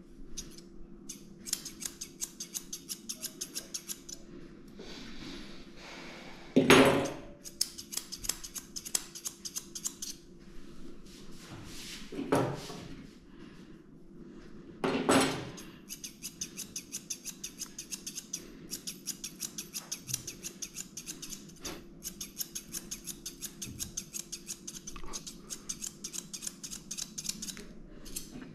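Steel grooming scissors snipping a dog's curly head hair in quick runs of about four or five cuts a second, over a low steady hum. Three louder short noises break in about a quarter and about half way through.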